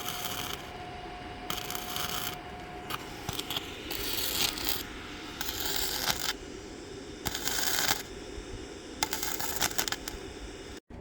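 MIG welding arc crackling and sizzling in a series of short welds, each about half a second to a second long with brief pauses between.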